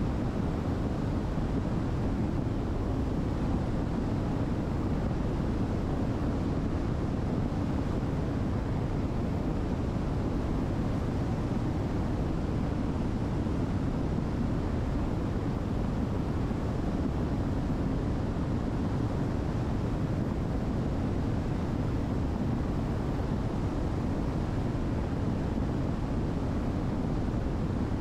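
Steady, unbroken low drone of a Diamond DA62's twin turbo-diesel engines and propellers, heard from inside the cabin in flight.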